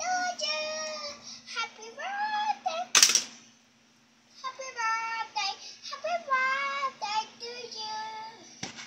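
A young girl singing a birthday song in Spanish, in phrases of held, sliding notes with a short pause partway through. A sharp click sounds about three seconds in, and a steady low hum runs underneath.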